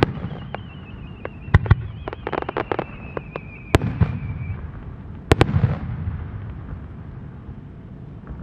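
Aerial fireworks shells bursting: a run of sharp crackling pops with heavy booms about one and a half, three and a half, and five seconds in. A high whistling tone slides slightly lower and fades out about halfway through. The rumbling echo dies away near the end.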